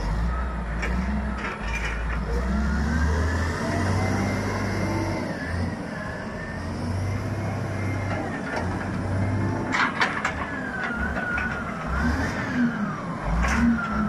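Caterpillar wheel loader's diesel engine running hard and revving up and down as it lifts a large log off a logging truck, with a few sharp knocks about ten seconds in and again near the end.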